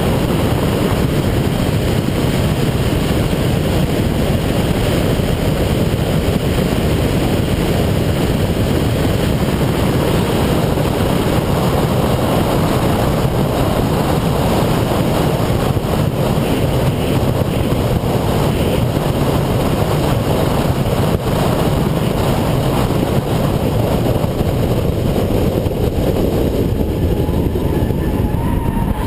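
Onboard sound of a 2008 Subaru Impreza 2.5i at speed: a loud, steady, dense rumble of engine, tyre and wind noise on the car-mounted camera's microphone, with no distinct engine note standing out.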